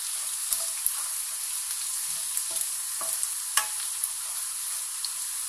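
Chopped garlic and cumin seeds sizzling in hot oil in a nonstick kadai, stirred with a wooden spatula, with a few sharp clicks through the steady sizzle; the loudest comes a little past halfway.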